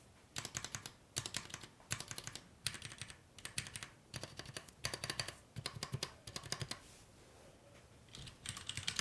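Cherry MX Board 3.0S RGB mechanical keyboard with Cherry MX Red linear switches being typed on in quick runs of keystrokes. The typing pauses for about a second and a half near the end, then resumes.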